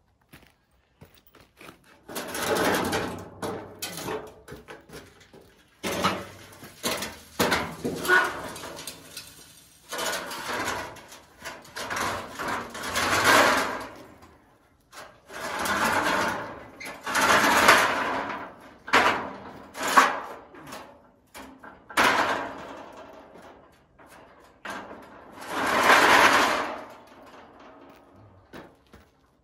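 Scaffolding parts being handled: about ten scraping, sliding noises of a second or two each, with sharp knocks in between.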